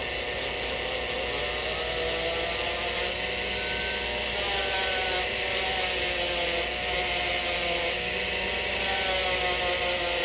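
Straight dental handpiece spinning a cloth rag wheel against a gold bridge to buff off excess polishing rouge as the final finishing step: a steady motor whine whose pitch wavers slightly as the wheel is pressed and eased, over a constant hiss.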